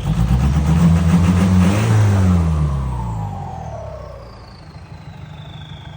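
Turbocharged engine of an E-taen farm truck revved hard for about two and a half seconds, then let fall back toward idle. As the revs drop, the turbo's high whistle winds down steadily in pitch.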